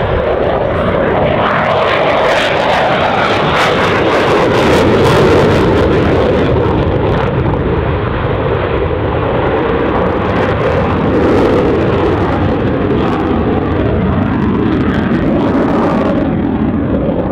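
Loud, steady jet noise of an F-16 fighter's single engine as it flies an aerobatic display, swelling slightly a few seconds in, with crackling now and then.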